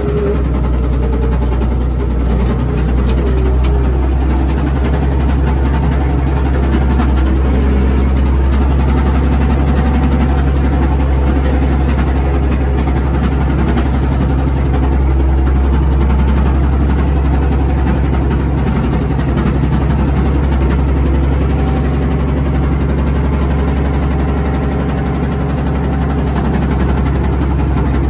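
Komatsu WA180 wheel loader's diesel engine running steadily, heard from inside the cab. The owner says the engine has a rod knock.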